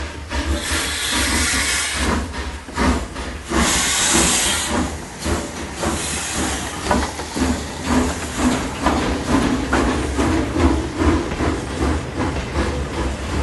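Toy train running on its track with a busy clicking clatter and two spells of hiss, the first about half a second in and the second about three and a half seconds in.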